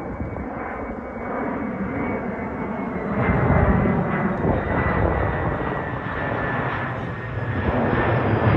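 Large military jet's engines rumbling, with a high turbine whine that falls slowly in pitch; it grows louder about three seconds in.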